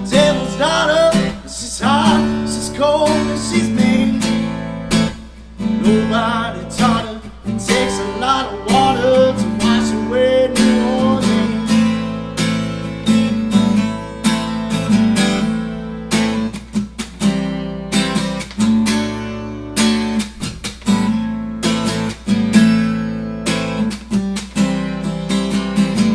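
Acoustic guitar strummed in a steady rhythm, chords ringing under each stroke: the instrumental break of a folk-rock song played solo.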